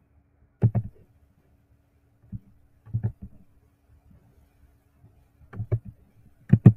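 Computer mouse clicks, about ten short sharp clicks in pairs and small clusters, over a faint steady electrical hum.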